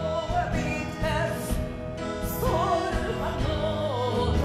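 A woman, an operetta singer, singing a song with instrumental accompaniment, her voice carrying a wavering, ornamented melody.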